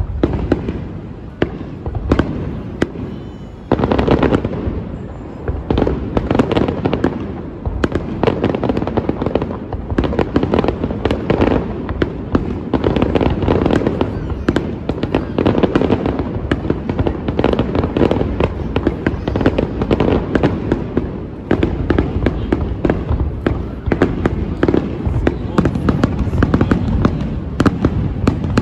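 Fireworks display: aerial shells bursting in rapid, overlapping succession, a dense barrage of bangs and crackle. It eases briefly around two to four seconds in, then comes back louder and keeps going.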